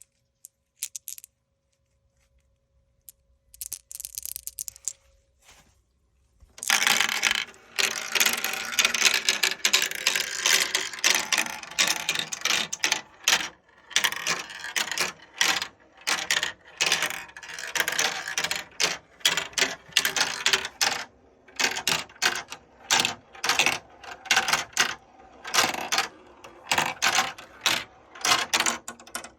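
Marbles rolling and clattering down plastic Kumikumi Slope marble-run track. A few scattered clicks come first; from about six seconds in it becomes a dense, continuous rattle of many marbles, rising and falling in repeated pulses.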